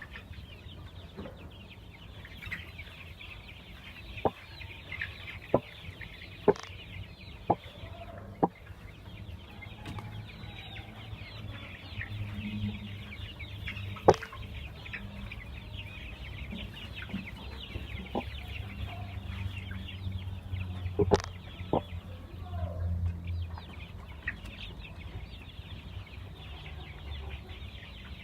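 A flock of chickens clucking and cheeping continuously, with a scattering of sharp clicks and knocks, several in the first third and louder ones about halfway and about three quarters through.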